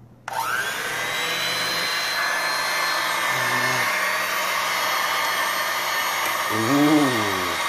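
Electric hand mixer switched on, its motor spinning up quickly with a rising whine, then running steadily as the beaters churn cookie dough.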